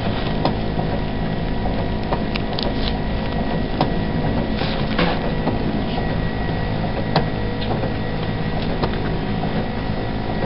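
Steady hum of running machinery, several steady tones at once, with scattered small clicks and rustles as gloved hands dress a chest catheter site.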